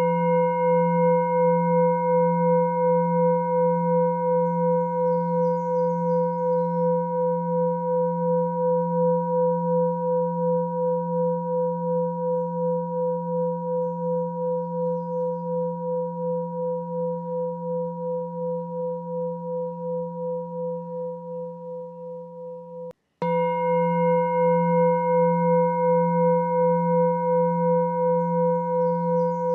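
A meditation frequency tone: a low ringing hum with several steady overtones, pulsing gently under twice a second and slowly fading. About 23 seconds in it cuts out for a moment and starts again at full strength.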